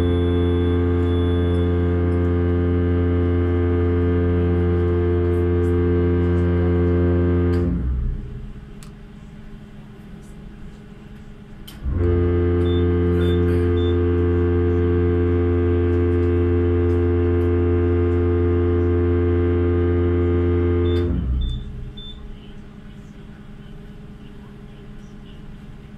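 Car ferry's ship whistle sounding two long blasts, each a deep steady note with strong overtones lasting about eight to nine seconds and separated by a pause of about four seconds. A low steady hum from the ship fills the gaps between the blasts.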